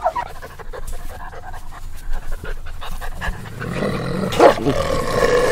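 White wolves panting in quick, rapid breaths, with a steady drone coming in about halfway through.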